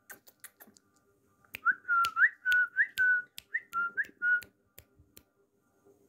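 A run of about eight short whistled notes over about three seconds, most starting with a quick upward flick and then held level, mixed with sharp clicks and taps.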